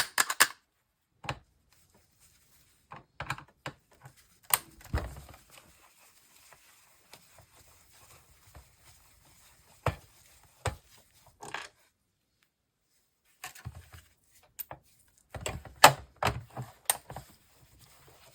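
Scattered clicks and knocks of a hand screwdriver and loose screws against a plastic monitor housing as screws are taken out, in short clusters with quiet gaps between.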